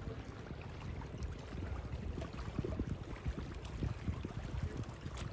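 Wind buffeting the microphone in an uneven low rumble, with small waves lapping at the rock shoreline.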